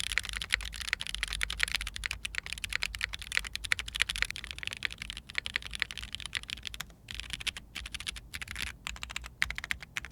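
Fast, continuous typing on a mechanical keyboard fitted with Zenclack Turbulence hyper-tactile switches (factory-lubed, long-pole stem), mounted in an aluminium plate under GMK keycaps. The sound is a dense run of clacky keystrokes, with a couple of short pauses in the second half.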